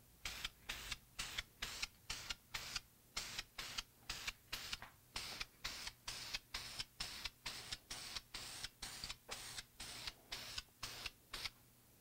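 Aerosol can of metallic blue spray paint sprayed in quick short bursts, each a brief hiss, about two or three a second, stopping near the end.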